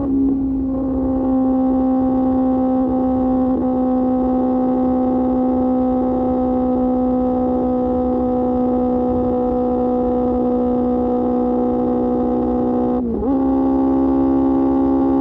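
QJ Motor SRK600's inline-four engine through an SC-Project exhaust, running at a steady high-pitched drone while riding. The pitch dips briefly and comes back about 13 seconds in.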